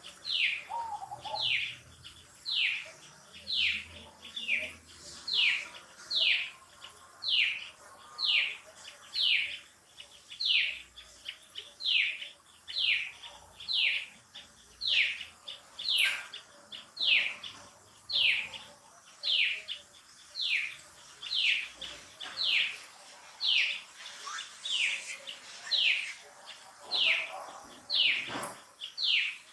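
A bird calling one short, falling note over and over at a very even pace, about three notes every two seconds.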